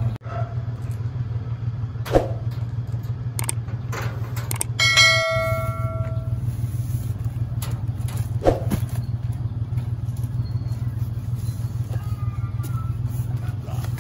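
A vehicle engine idling with a steady low drone, with a knock about two seconds in and another near eight and a half seconds, as cardboard boxes are handled. About five seconds in, a bell-like ringing tone sounds for about a second and a half.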